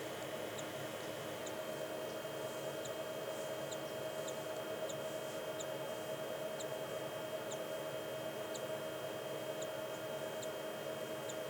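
Cockatiel chick peeping as it hatches: very short, high squeaks about once or twice a second, over a steady hum.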